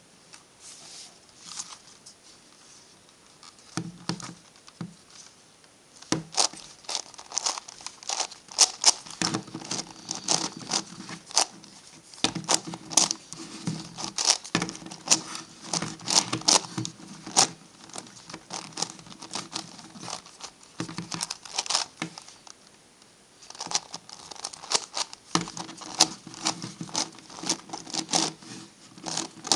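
Plastic clicking and rattling of an MF8 Gigaminx puzzle's layers being turned by hand in quick runs of turns. The clicks are sparse for the first six seconds, then come thick and fast, with a short lull about three-quarters of the way through.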